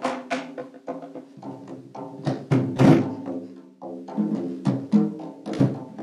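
Taiko drums played live: an irregular run of strikes of varying force, the strongest about three seconds in, with a steady pitched ringing that carries on beneath the strikes.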